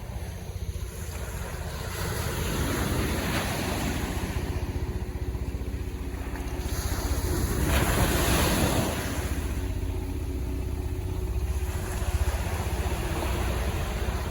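Ocean surf breaking and washing up the beach, with wind rumbling on the microphone; a wave surges loudest about eight seconds in.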